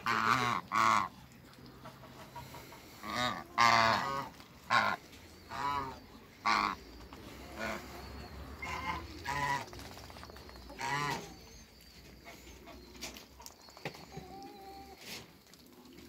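African geese honking: a series of about eleven short, nasal honks, loudest and closest together in the first few seconds, then thinning out after about eleven seconds.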